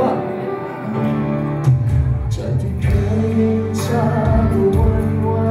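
A man singing live into a handheld microphone over backing music with bass and percussion.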